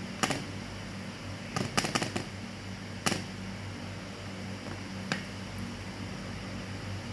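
Sharp clicks and knocks of hard objects being handled: one about a quarter second in, a quick cluster around two seconds, then single ones near three and five seconds. A steady low hum runs underneath.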